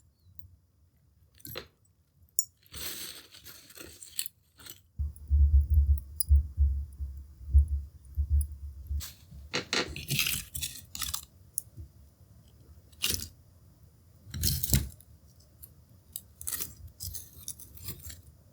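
Scattered clinks, scrapes and crackles at a charcoal hibachi, from the grilling tools and the charcoal being handled. A low rumble joins from about five seconds in.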